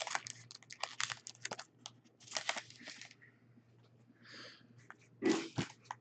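A trading-card pack wrapper crinkling and cards being handled: bursts of crackling, a soft swish, and a louder thump with crackle near the end. A faint steady hum underneath.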